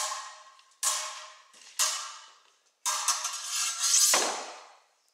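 Steel rapier blades clashing: single strikes about once a second, each ringing out and fading, then a longer, louder clash and ring about three seconds in.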